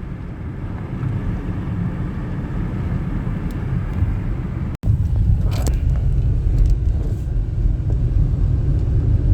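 Steady low rumble of a car on the road, engine and tyre noise. It cuts out for an instant about halfway through and comes back louder.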